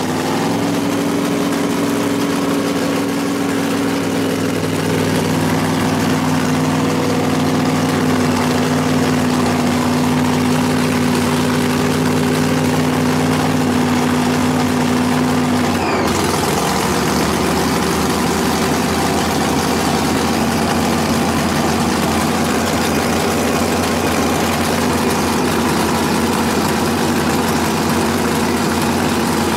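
Pro Modified drag car's engine idling steadily during its warm-up, heard from inside the cockpit. About halfway through, the engine note changes abruptly and turns rougher and noisier.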